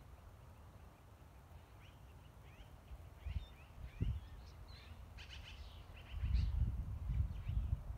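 Small birds chirping: a run of short, high chirps from about two seconds in. A low rumble of wind on the microphone comes up about six seconds in.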